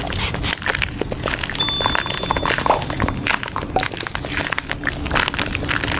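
Café-style clatter: a dense run of clicks, taps and crinkling, with a brief high ringing chime about one and a half seconds in.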